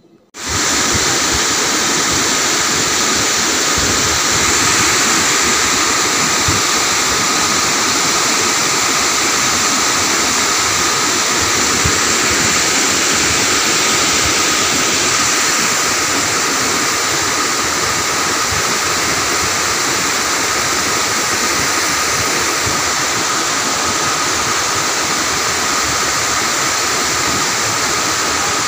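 Water spilling over the closed gates of a small dam, a loud, steady rushing that starts suddenly just after the beginning.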